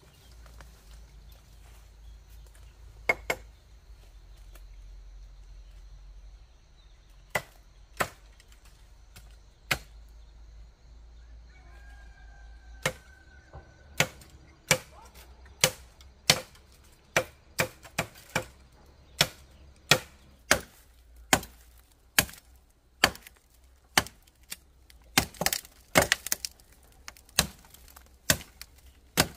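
Repeated chopping: a few scattered sharp knocks at first, then a steady run of strokes about one and a half a second through the second half, with a louder quick cluster near the end.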